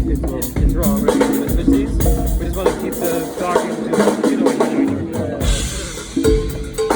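A live band playing with a drum kit and bass at a sound check. The drums drop out for a couple of seconds midway and come back in near the end.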